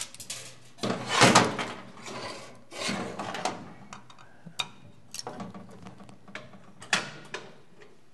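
Metal hand tools clattering and clinking on a steel workbench as Allen keys are picked out and tried. There is a rattling burst about a second in and another around three seconds, then a few separate sharp clicks.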